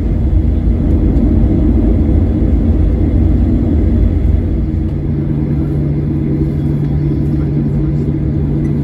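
Cabin noise of a Boeing 737-900ER taxiing, heard from a window seat over the wing: a steady low rumble from its CFM56 engines at taxi power and the rolling airframe, with a steady low hum coming in about halfway through.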